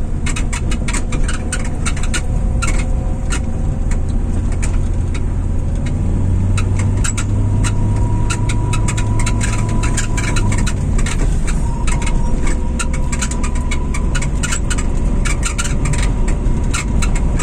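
Tailgate of a long-wheelbase five-door Lada Niva creaking and clicking again and again, sharply and irregularly, over steady engine and road noise from the moving car. The tailgate's rubber seals are worn through, so the door's metal rubs on the body's metal.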